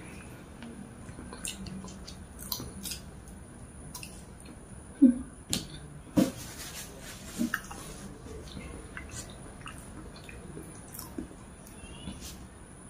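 Close-up eating sounds: chewing and wet mouth smacks, with scattered light clicks and taps as sate and lontong are handled on a paper wrapper. A few louder smacks come between about five and seven and a half seconds in.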